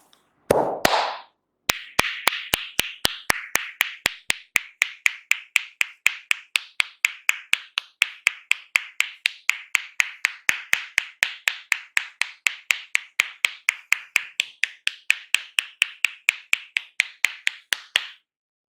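Rhythmic hand tapping of an Indian head massage: the barber's hands strike the head in quick, even claps, about four a second, which stop suddenly near the end. A single longer, lower sound comes just before the tapping starts.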